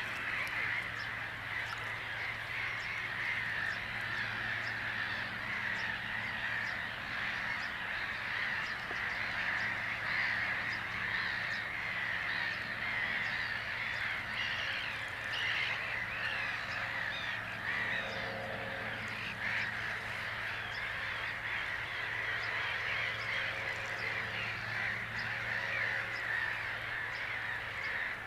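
Dense, continuous chorus of many birds chattering and chirping together, with no pauses, over a faint steady low hum.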